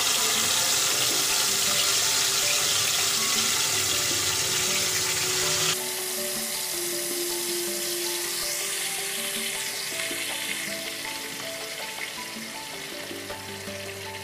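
Marinated chicken pieces sizzling and spitting as they deep-fry in hot oil in a kadhai. The sizzle is loud at first, drops suddenly about six seconds in, then eases gradually. Soft background music with held notes plays under it.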